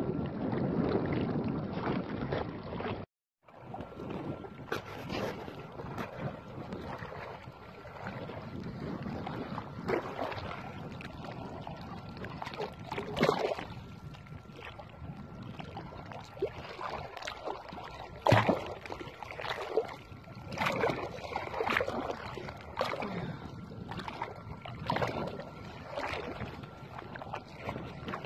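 Wind on the microphone over open lake water, with irregular splashes and slaps of water. About three seconds in the sound cuts out for a moment and switches to a different recording.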